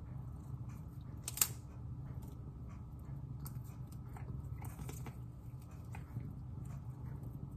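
A cat chewing and biting on a raw broccoli floret: small crunches and mouth clicks, with one sharper click about a second and a half in, over a steady low hum.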